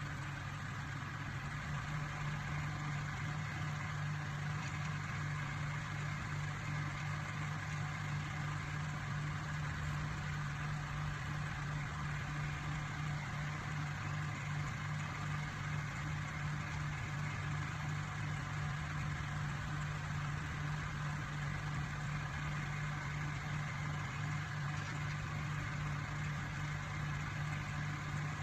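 Microwave oven running with a steady low hum that does not change.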